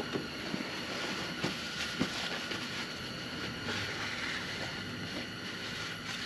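A shop towel rubbing over a metal hydraulic drive motor part, with a few light clicks and knocks of metal parts in the first two seconds, over a steady background hiss.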